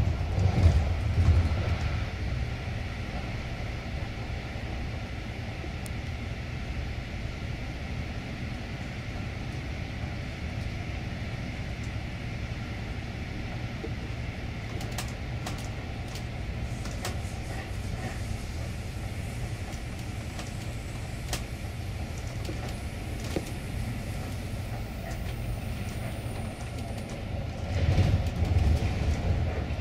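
Freight train running on the rails, its wagons giving a steady low rumble with scattered sharp clicks; the rumble swells louder at the start and again near the end.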